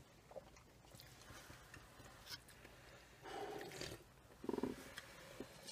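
Quiet sipping of hot coffee from paper cups, with two short slurps about three and four and a half seconds in, and faint mouth and handling clicks between.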